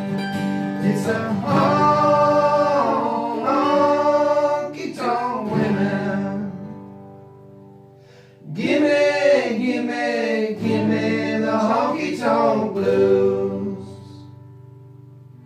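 Singing over a strummed acoustic guitar, in two sung lines; the song dies away near the end.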